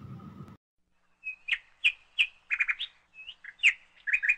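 A small bird chirping: a string of short, sharp chirps beginning about a second in, some coming in quick runs of two or three.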